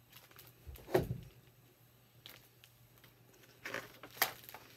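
Handling of a hardcover picture book: a dull knock about a second in, then a quick rustle and flick of paper pages being turned near the end.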